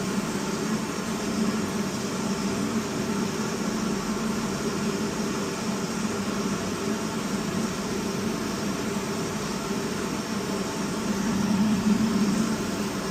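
Commercial boiler's gas burner and combustion-air blower running steadily as it is brought up from low fire toward high fire, with a low hum under an even rushing noise that swells slightly near the end.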